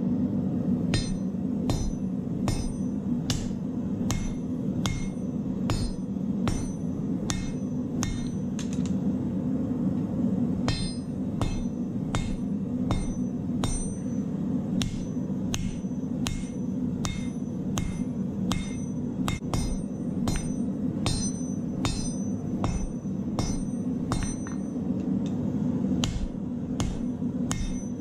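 Hand hammer striking red-hot steel on an anvil in a steady rhythm, about one blow every half second, each blow ringing metallically, as a bolo knife blade is forged. Under the blows runs the steady roar of a lit multi-burner propane forge.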